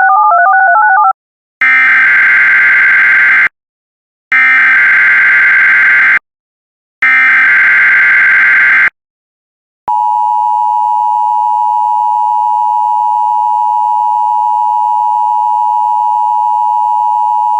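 Emergency Alert System tones: a brief warbling two-note tone, then three SAME digital header bursts, each about two seconds of shrill data screech with short gaps between. About ten seconds in, the steady EAS attention signal starts, a dual-tone drone that holds for about eight seconds.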